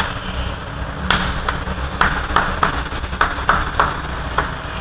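Chalk writing on a chalkboard: a run of short taps and scratches, one for each stroke of the letters, about ten in all, over a steady low hum.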